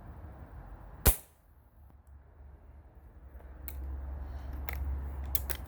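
Gamo Accu .22 underlever air rifle with a gas ram firing one shot, a single sharp crack about a second in. A few light clicks follow later, over a low rumble of wind on the microphone.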